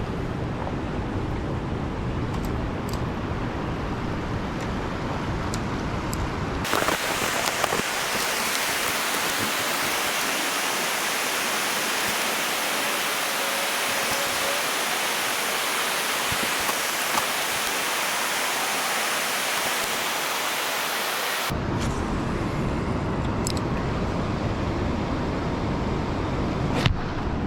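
Steady outdoor noise: a low wind rumble on the microphone that cuts abruptly about seven seconds in to an even, bright hiss of rushing water, then switches back to the wind rumble about twenty-one seconds in.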